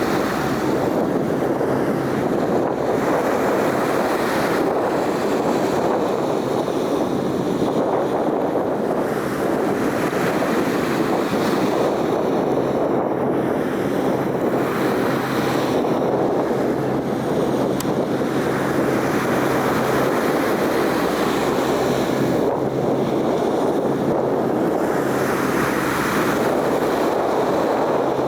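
Steady rushing of wind on the microphone, swelling slightly now and then, over a faint constant low hum.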